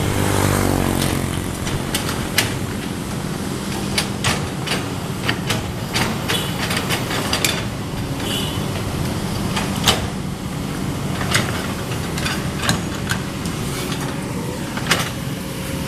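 Kobelco excavator's diesel engine running steadily, its pitch dropping in the first second, with frequent sharp knocks and clanks as the machine works.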